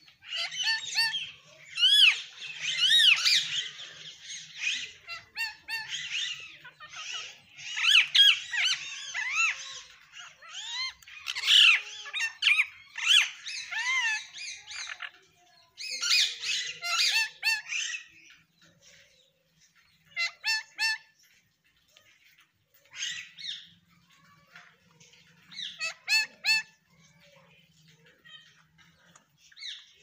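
Indian ringneck parakeets chattering and squawking: busy, high-pitched calls with quick rising and falling notes for most of the first eighteen seconds, then a few short, spaced-out runs of calls.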